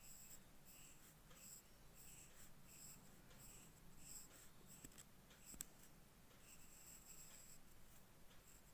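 Faint scratching of a pencil on paper in many short, irregular strokes. A single sharp click about five and a half seconds in.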